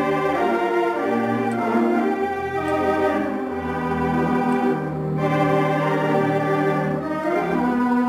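Barton theatre pipe organ playing sustained full chords, moving to a new chord every second or two.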